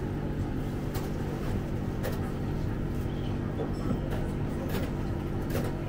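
Steady low hum of an indoor market hall, with a few short rustles and clicks about a second, two seconds and near the end.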